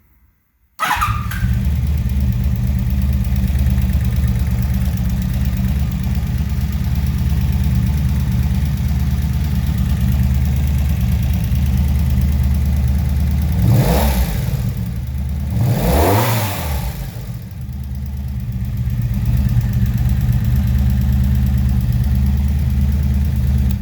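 Honda V45 Magna 750 V4 motorcycle engine idling steadily, blipped twice near the middle with the revs rising and falling quickly each time. It runs after a cylinder-head replacement meant to cure a ticking valve-train noise caused by a broken valve adjusting screw and a bent valve.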